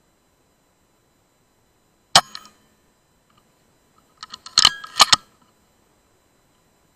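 A tuned Weihrauch HW100 .177 PCP air rifle fires once, a single sharp crack about two seconds in. About two and a half seconds later comes a quick run of sharp metallic clicks with two louder snaps.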